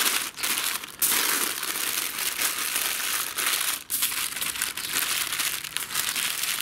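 Baking paper crinkling and rustling as it is folded and pressed tightly around a piece of meat, steady with a few short breaks.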